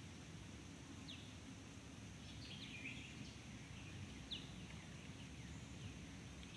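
Faint outdoor ambience: a low steady rumble with a few short, high bird chirps scattered through it.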